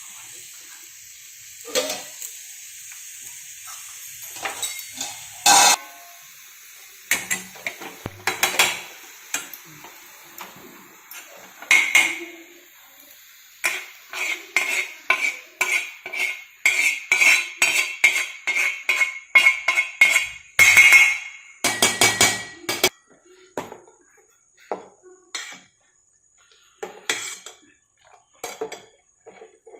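A metal spoon clinking and scraping against a steel cooking pot, in scattered knocks at first and then a fast run of ringing clinks in the middle. A steady hiss sits under the first part.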